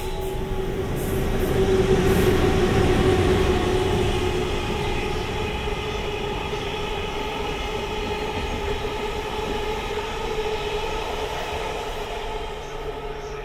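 Freight train hauled by a JR Freight EH200 electric locomotive rolling past, loudest about two seconds in. Its rumble carries a steady whine throughout.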